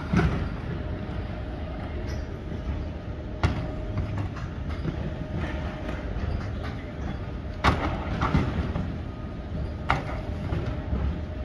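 Airport baggage carousel running: a steady low rumble from the moving slatted belt, with a faint hum and four sharp clacks spaced a few seconds apart.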